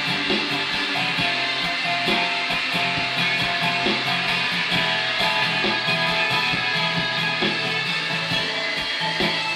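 Acoustic guitar strummed in a steady, even rhythm, chords ringing continuously.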